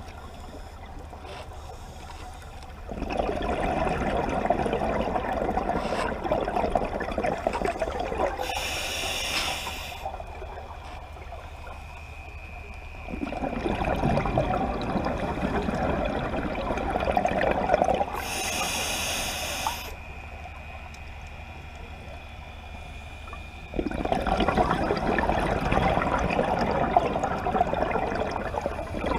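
Scuba diver breathing through a regulator underwater: three long rushes of exhaled bubbles, each several seconds long, with a short hiss of the regulator on each inhalation, twice, between them.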